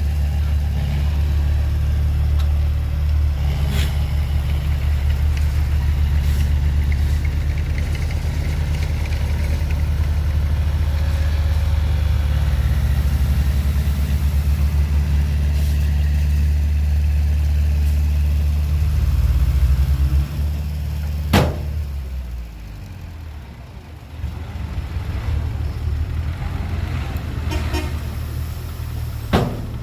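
Heavy machine's diesel engine running steadily close by, easing off about two-thirds of the way through. A sharp knock follows, then the engine picks up again at a lower level.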